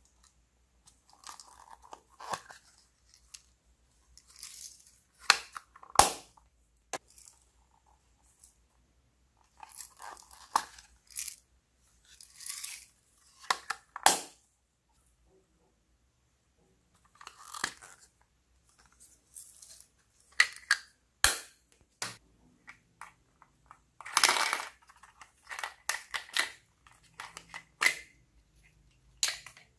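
Small plastic compacts and containers being handled: several sharp plastic clicks of catches and lids snapping, with scattered rustling and scraping in between.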